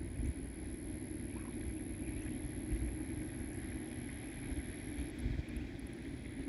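Wind rumbling on the microphone, with a steady outdoor background hiss and a faint, steady high-pitched whine; no duck calls stand out.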